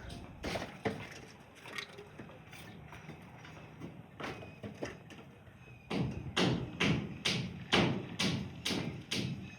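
Scattered knocks, then a quick run of about eight sharp knocks or thuds, two to three a second, starting about six seconds in.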